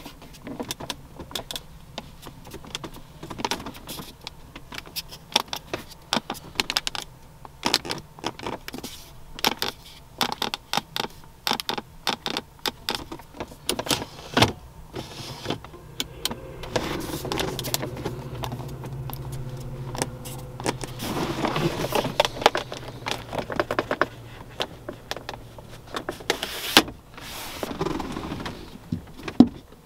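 Hands clicking, tapping and pressing on the interior trim and fittings of a 2004 Cadillac XLR: many sharp clicks and knocks. A little past halfway, a small electric motor in the car hums steadily for about nine seconds, then stops.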